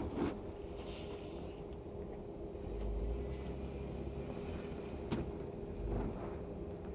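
A 4x4's engine running steadily at low speed as it creeps over dirt hills. Low gusts of wind hit the microphone, and there is a single sharp click about five seconds in.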